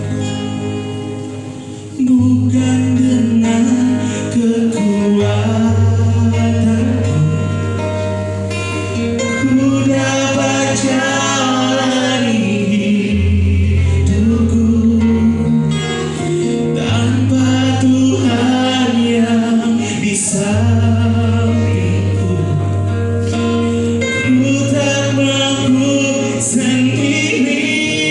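A solo voice singing a Christian worship song over instrumental accompaniment with long held bass notes. The accompaniment plays alone briefly, then the voice comes in about two seconds in.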